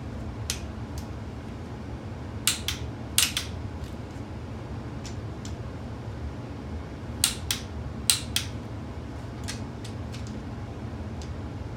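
Click-type torque wrench clicking as it breaks over on an LQ4 6.0 cylinder head bolt at 80 ft-lb, which shows the bolts being re-checked are already at torque. There are sharp clicks in pairs about two and a half and three seconds in, and two more pairs around seven and eight seconds in, with a few fainter ticks, over a low steady hum.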